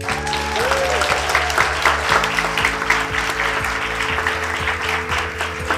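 Audience applauding, many hands clapping fast and evenly, with steady background music underneath.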